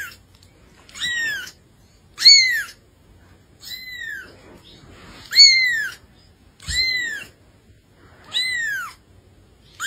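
A young kitten mewing repeatedly: about seven high-pitched mews, each rising then falling in pitch, roughly one every second and a half.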